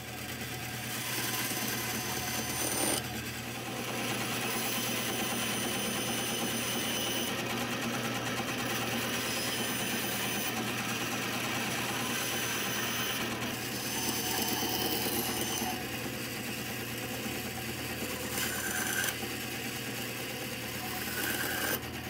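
A stationary power saw running steadily and cutting 3/4-inch plywood into small square blocks.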